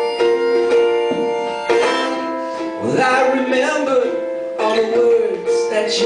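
Harmonica playing a melody of long held notes over a strummed ukulele.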